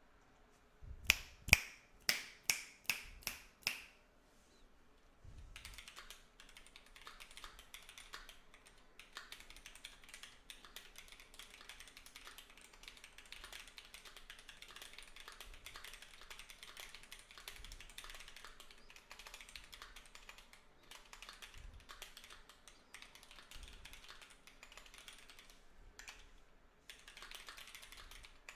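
Keychron Q2 aluminium-cased mechanical keyboard with Keyfirst MX Bling Yellow linear switches (35 g, pre-lubed) being typed on. It opens with about eight loud, evenly spaced single strikes, then after a short pause settles into fast continuous typing with a brief break near the end.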